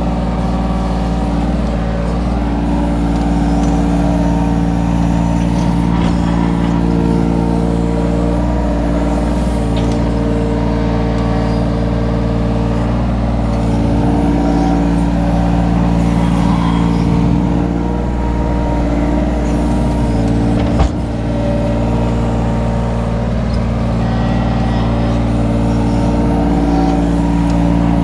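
Kobelco mini excavator's diesel engine running at steady working revs while the arm and bucket dig soil, heard from the operator's seat. One sharp knock about three quarters of the way through.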